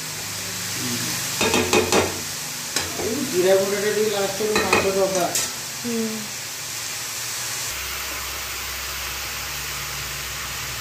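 Broccoli frying with a steady sizzle in an aluminium kadai, stirred with a metal spatula that scrapes and clicks against the pan. A few short pitched sounds come through between about 1.5 and 6 seconds. After that the stirring stops and only the sizzle goes on.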